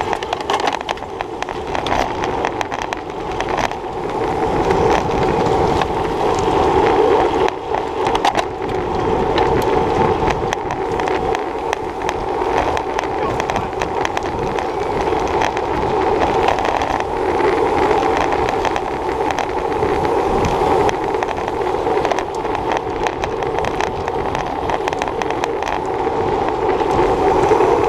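Road bicycle rolling at race speed in a pack: steady tyre-on-pavement and wind noise picked up by a handlebar-mounted GoPro, with a wavering hum that rises and falls slightly.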